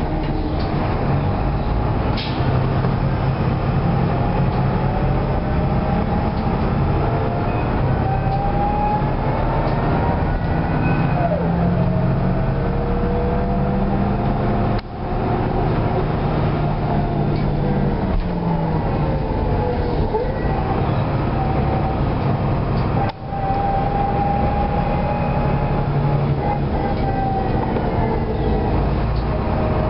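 Neoplan city bus under way, heard from inside near the rear: a steady diesel drone with the ZF automatic gearbox whining, its pitch gliding up and down with road speed. The sound drops briefly twice, about 15 and 23 seconds in.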